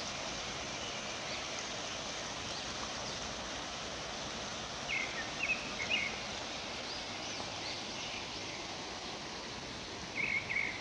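Fast-flowing river rushing steadily, with a few short bird chirps about five seconds in and again near the end.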